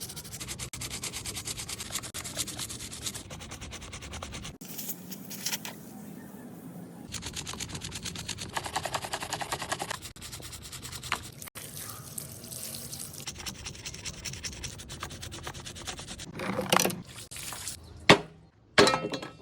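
Rapid scrubbing of a surface, with dense, fast back-and-forth rubbing strokes that run on for many seconds. A few short, louder bursts come near the end.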